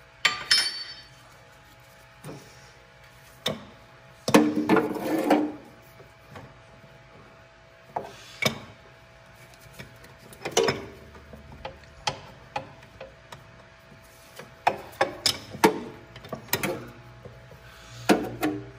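Irregular knocks, clinks and scrapes of a hand and a metal tool working among the metal parts around a skid steer's hydraulic oil filter, with a longer scraping spell about four seconds in.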